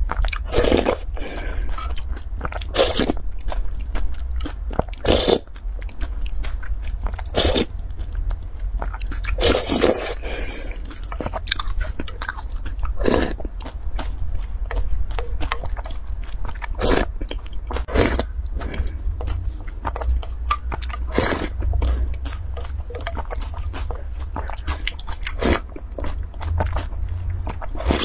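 Close-miked eating sounds of a bean-and-grain porridge: slurps, chewing and gulps, first from a wooden spoon and then straight from the tipped glass bowl. The sounds come every second or two over a steady low hum.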